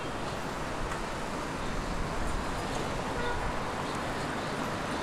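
Steady, even background noise, a rushing hiss with no distinct events in it.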